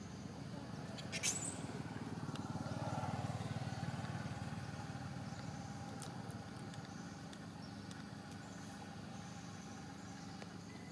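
A motor vehicle's engine humming low and steady, growing louder about three seconds in and then slowly fading. One brief sharp high sound just over a second in.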